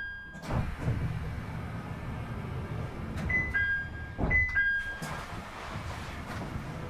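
Interior running sound of a JR East E721-series electric train: a steady low rumble of wheels and running gear with a few knocks. Short two-note electronic tones, a high note stepping down to a lower one, sound about three and four seconds in.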